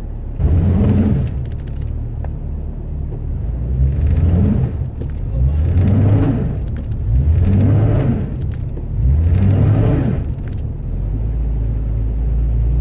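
Jeep engine revving up and down in about five surges of roughly a second each over a low rumble, then settling to a steady low drone near the end.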